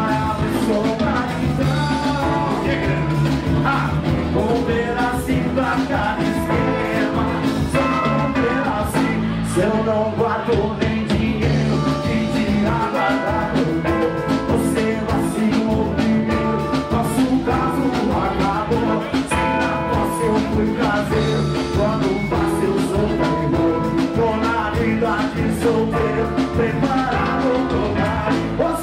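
A live band playing a song with a male singer, backed by electric bass, drums, keyboard, accordion and acoustic guitar.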